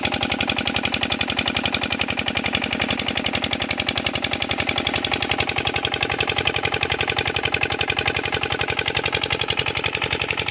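Water pumpset's engine running steadily, a loud, even, rapid firing beat with no change in speed.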